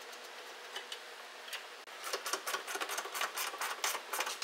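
Ratchet wrench clicking in quick short strokes as the 8mm nuts on a tailgate handle are run down. It starts with a few faint ticks and becomes a steady run of clicks about two seconds in.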